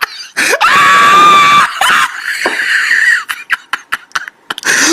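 A high-pitched scream sound effect: the pitch rises about half a second in and is held loud for about a second, then trails off into a rougher cry. A few short quick clicks and snippets follow near the end.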